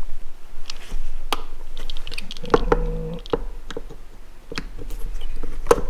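Screwdriver working the brass jets out of a Yamaha XJ750 carburetor: irregular small metallic clicks and taps of the tool and small parts, with a brief squeak about two and a half seconds in.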